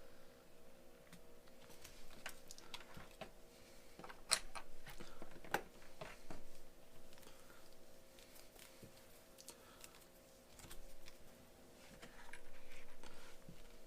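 Irregular small clicks and taps, like tools and small parts being handled on a workbench during a console repair, over a faint steady hum.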